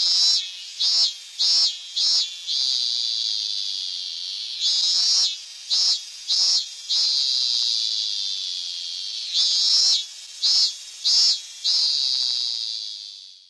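Korean robust cicada (Hyalessa fuscata) singing: a steady high buzz broken by louder pulsed phrases, each a longer loud note followed by two or three short ones, repeating about every four to five seconds. The song fades out near the end.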